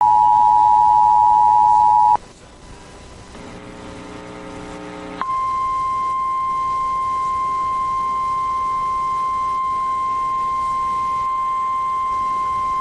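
Emergency Alert System alert tones: the two-tone EAS attention signal sounds for about two seconds and cuts off. A quieter stretch of faint layered humming follows, growing louder, then the single steady tone of the NOAA Weather Radio warning alarm comes in about five seconds in and holds.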